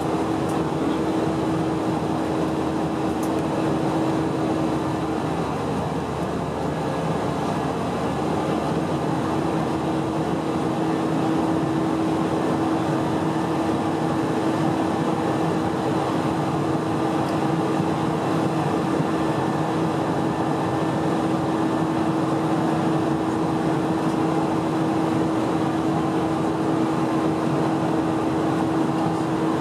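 Cabin noise of an Airbus A320-232 in its climb, heard from a seat over the wing: the steady rush of airflow and drone of its IAE V2500 turbofan engines, with a steady hum that drops out for a few seconds about five seconds in.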